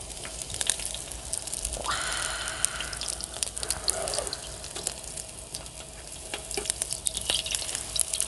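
Pig-blood and buckwheat batter pancakes frying in oil on a griddle: a steady crackling sizzle as the pancakes are turned and laid with spatulas.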